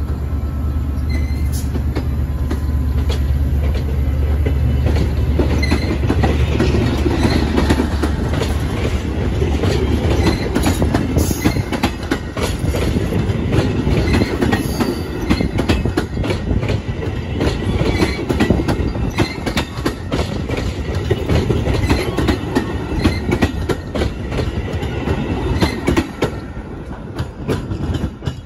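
Metra diesel commuter train pulling out: the locomotive's low engine drone fades over the first ten seconds or so as the bilevel coaches roll past, wheels clicking steadily over the rail joints with a few brief squeals. The sound drops off at the very end as the cab car passes.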